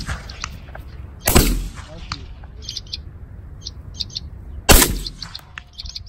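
Two shotgun shots about three and a half seconds apart, the second slightly louder, with short high bird chirps repeating between them.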